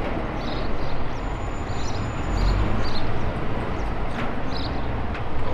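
A heavy lorry's diesel engine running steadily, with a few short high chirps over it.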